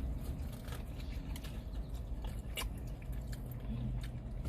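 Close-up eating sounds: someone biting into and chewing crispy fried chicken, with scattered short crunchy clicks over a steady low hum.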